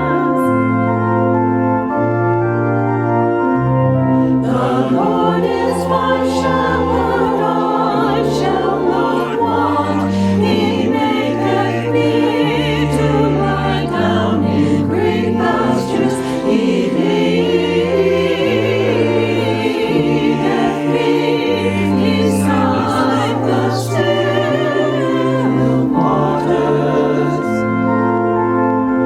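Organ playing a hymn in sustained chords over a slowly moving bass line, with voices singing along from about four seconds in until near the end.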